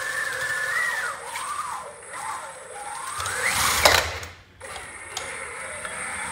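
Drive motors of a remote-controlled tracked aircraft tug whining, the pitch rising and falling as it drives across the floor and lines up under a tailwheel. The whine climbs steeply and ends in a loud clatter about four seconds in, as the tailwheel is taken onto the tug, and the whine resumes near the end.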